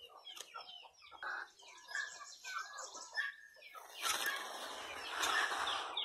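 Domestic turkeys giving a quick run of short, chirping clucks. In the second half come two louder, longer rushing noises, the louder one near the end.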